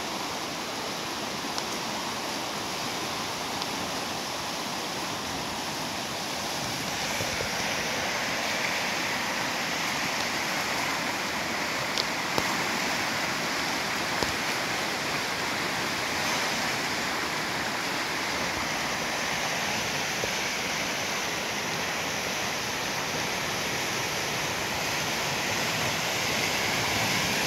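A creek in flash flood rushing past: a steady rush of fast, muddy floodwater, a little louder from about seven seconds in.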